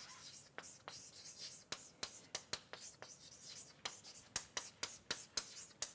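Chalk writing on a chalkboard: a faint string of short, sharp taps and scratches, a few each second, as the words are chalked out.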